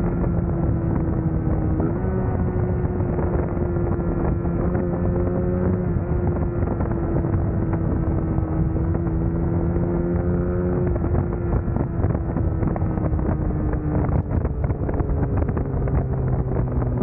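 Suzuki GSX-S150's single-cylinder four-stroke engine running at a steady cruise with wind rushing past. Its pitch holds nearly level, then eases down after about eleven seconds and drops further as the bike slows near the end.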